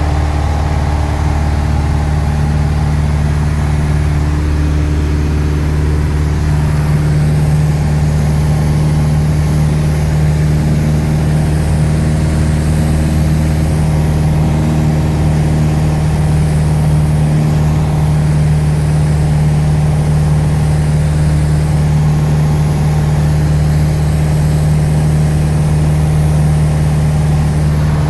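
Piper PA-28's piston engine and propeller droning steadily in flight, heard from inside the cockpit.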